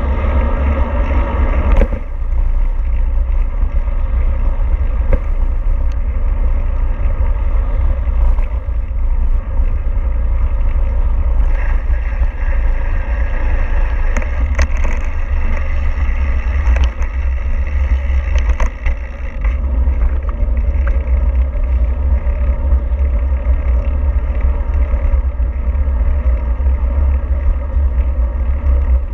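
Steady low rumble of a moving vehicle, with a few light clicks and knocks over it.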